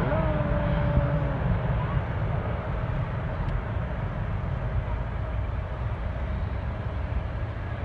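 Boeing 747's four jet engines rumbling at climb thrust as the airliner climbs away, the deep roar slowly fading.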